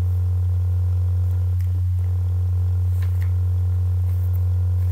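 Steady low electrical hum, the mains hum of the recording setup, with a few faint clicks.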